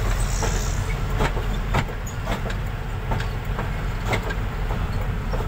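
A moving road vehicle heard from on board: a steady low rumble of engine and tyres, with irregular knocks and rattles about every half second to a second.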